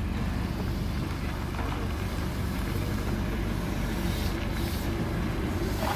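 Neoplan AN440LF-ETB electric trolley bus driving slowly past, a steady low rumble of its tyres and running gear.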